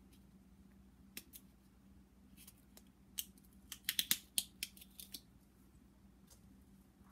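Small, new spice jar being opened by hand: a scatter of sharp clicks and crackles from its cap and seal, densest about four seconds in.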